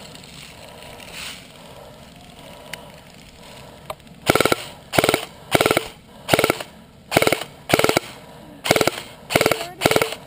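Airsoft gun firing a string of short full-auto bursts, about nine in quick succession at a steady rhythm, starting about four seconds in after a quiet stretch.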